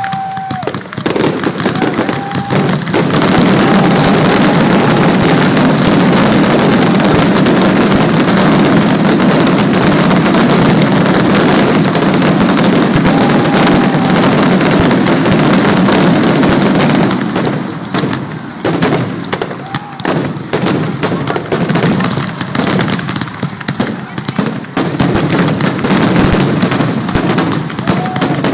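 Fireworks display: a dense barrage of rapid, overlapping explosions merging into a continuous roar, which breaks up after about fifteen seconds into separate bangs and crackles.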